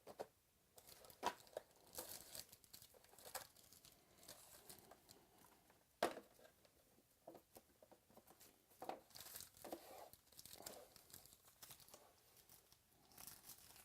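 Trading card box and pack being opened by hand: wrapper and packaging tearing and crinkling, with light clicks and snaps as the cards are handled, two louder snaps about a second in and about six seconds in.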